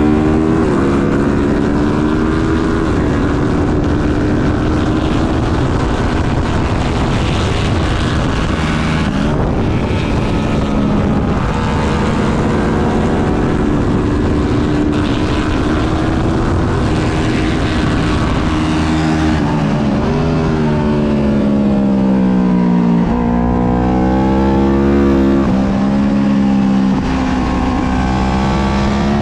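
Twin-cylinder race motorcycle engine at race pace, heard onboard with wind rush: the revs climb and drop repeatedly through the gears, falling away under braking about two-thirds of the way through before rising again.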